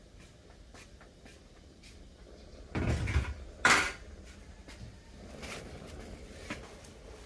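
A metal tray set down on a table: a dull thump, then about half a second later a sharp, loud metallic clatter. A softer rustle of a plastic bag follows.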